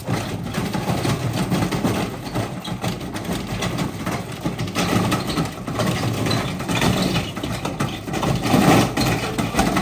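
Whirlpool washing machine running with bricks in its drum: a steady motor hum under a continuous clatter of knocks and rattles.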